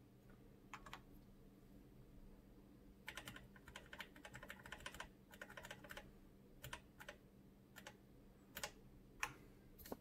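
Faint typing on a mechanical computer keyboard: a quick run of keystrokes about three seconds in, then single key presses spaced out, over a faint steady low hum.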